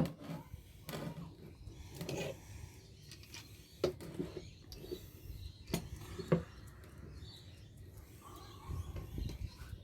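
Scattered metal knocks and clanks from working a light-fitting ballast held in a G clamp with a hammer and cold chisel: one sharp knock at the very start, then a few lighter ones spread out.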